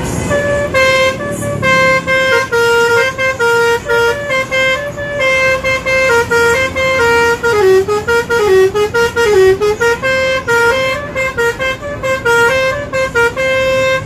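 Bus's Basuri multi-tone 'telolet' horn playing a fast melody, a quick run of short and held notes starting about half a second in.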